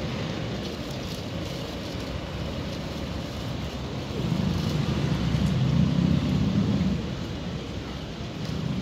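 Steady city street background with road traffic; a passing vehicle's low rumble swells from about four seconds in and fades by about seven.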